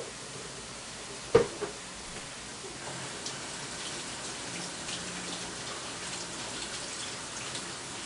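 A single knock about a second in, then a kitchen tap running water into the sink, starting about three seconds in and running on steadily.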